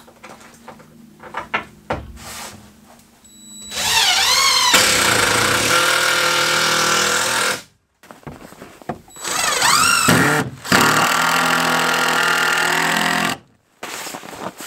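A few light knocks, then a cordless drill runs twice for several seconds each, its motor whining up in pitch as it spins up and drives into a plywood wall.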